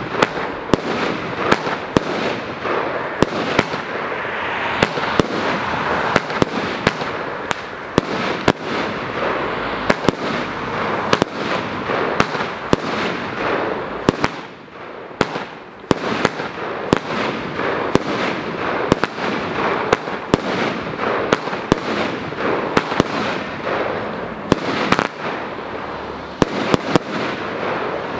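Stenskoven consumer fireworks battery (cake) firing continuously: dozens of sharp bangs over a constant dense crackle of launches and bursting stars, with a brief lull about halfway through before it picks up again.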